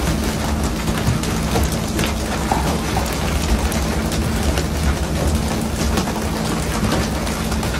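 Dense hiss of spraying and splashing seawater at the stern of a pole-and-line tuna boat, over the boat's engine running with a steady low hum, with many scattered sharp splashes and slaps as skipjack tuna are hauled aboard.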